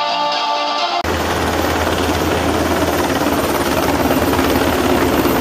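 Music cuts off abruptly about a second in, giving way to an MH-60R Seahawk helicopter running: a steady low rotor thrum under a broad, even rush of turbine and rotor noise.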